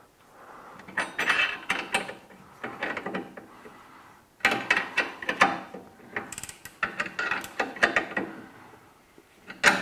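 A ring spanner tightening the nut of a rear anti-roll bar drop link while an Allen key holds the stud: several bouts of rapid metallic clicking and clinking, with short pauses between them.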